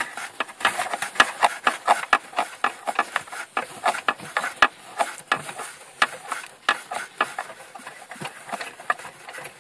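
Fingers unscrewing the small nut that holds a Peugeot 206 rear light unit: a quick, irregular run of clicks and scrapes.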